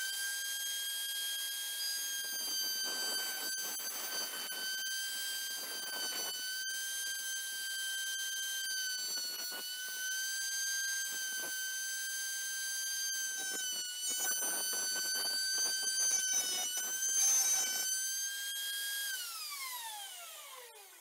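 A small high-speed router mounted under a table runs with a high whine, its pitch dipping a little under load as a chipboard workpiece is fed into the bit in several passes that add a rough rasping cutting noise. Near the end it is switched off and the whine falls steadily in pitch as the motor spins down.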